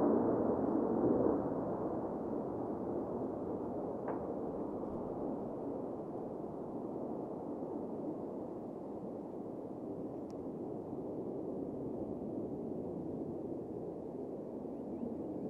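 Jet noise from a Blue Angels F/A-18 Super Hornet's twin engines as it flies away low: a steady rushing sound that fades over the first two seconds, then holds at a lower level.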